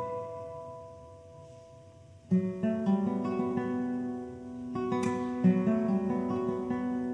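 Solo classical guitar by Alkis Efthimiadis, 2017: a chord rings and fades away for about two seconds, then a sudden loud attack opens a run of plucked notes over a low bass note held underneath, with another strong accent about five seconds in.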